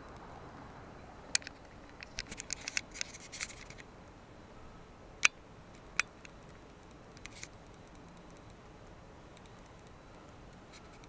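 A scattered series of sharp clicks and scratchy ticks. A quick cluster comes about two seconds in, and the two loudest clicks fall just past five seconds and about three-quarters of a second later.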